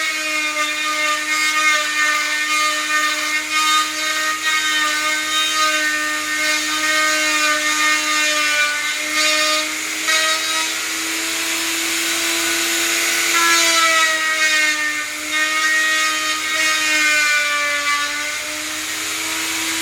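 Electric power tool running continuously as it works wood: a steady motor whine that sags a little in pitch each time it is loaded, most clearly a little past the middle.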